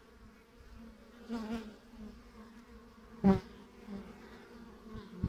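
Honeybees buzzing at a hive entrance: a steady hum of many bees flying in and out, with single bees buzzing briefly louder as they pass close, the loudest about three seconds in.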